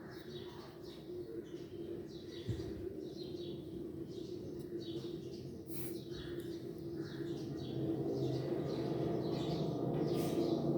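Birds chirping in quick, repeated short calls over a steady low hum that grows louder toward the end.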